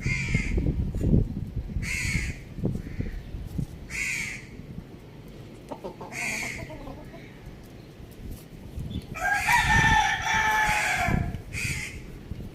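A rooster crows once, a single call of about two seconds near the end. Short, sharp bird calls repeat about every two seconds throughout.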